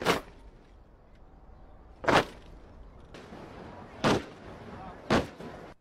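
Four sharp, loud crashes of a column of honor-guard boots stamping the pavement in unison. The first comes right at the start, then two about two seconds apart, and the last about a second after that.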